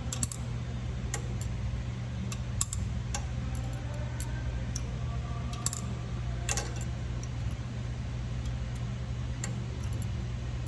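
A steady low hum, which the worker takes to be a centrifuge running elsewhere in the building. On top of it come scattered light metallic clinks and ticks of tools and seamer parts being handled, the sharpest about two and a half seconds in.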